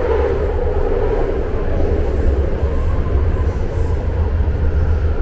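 BART train running on the rails, heard from inside the car: a steady, loud rumble with a faint high whine for a moment about halfway through.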